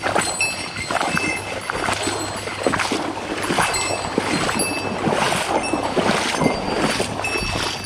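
Running river water splashing and gurgling close by, a continuous irregular crackle with no pauses.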